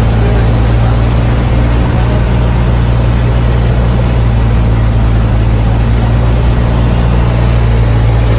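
Cessna 172's four-cylinder piston engine and propeller running, heard from inside the cockpit: a loud, even drone with a strong low hum that holds steady throughout.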